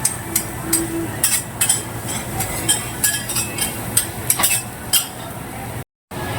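Metal kitchen utensils clinking and scraping in a quick, irregular series of sharp clinks over a steady background din, as food is stirred and handled. The sound cuts out for a moment near the end.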